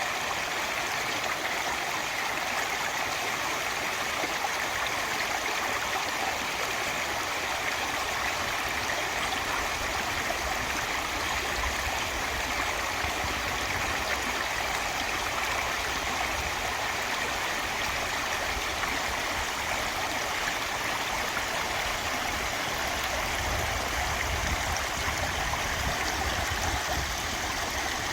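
Mountain valley stream flowing steadily, an even, unbroken sound of running water.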